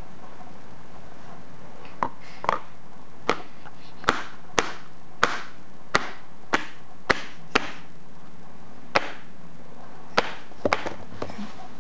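A series of about a dozen sharp, short knocks, irregularly spaced half a second to a second apart, starting about two seconds in, over a steady background hiss.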